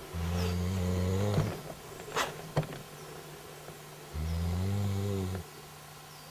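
A person snoring loudly: two low, drawn-out snores, each about a second long, roughly four seconds apart.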